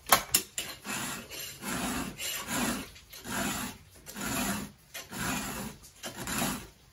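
Husqvarna 3/16-inch round file rasping across the cutters of a small low-profile top-handle chainsaw chain, in steady push strokes of about three every two seconds. A couple of sharp clicks come right at the start. The file cuts coarse and jagged on this small chain.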